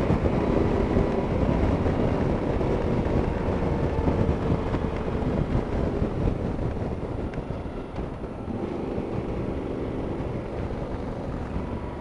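Motorcycle riding at road speed: a steady engine drone mixed with wind noise on the bike-mounted camera's microphone.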